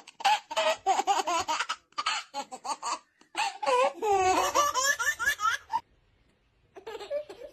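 Baby laughing hard in rapid, high-pitched belly-laugh bursts, breaking off for about a second near the end before quieter giggling starts again.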